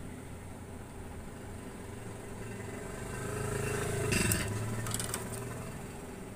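A motor vehicle's engine passing by: its note swells to a peak about four seconds in, then drops in pitch as it fades. A few sharp clicks sound around the peak.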